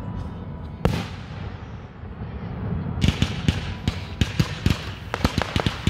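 Fireworks: one sharp, loud bang about a second in, then from about halfway through a rapid, irregular string of pops and crackles, several a second.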